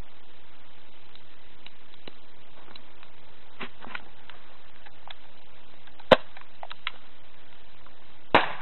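A CO2 pistol fires a lit firecracker with one sharp crack about six seconds in. A little over two seconds later the firecracker explodes with a bang that rings out briefly, over a steady hiss.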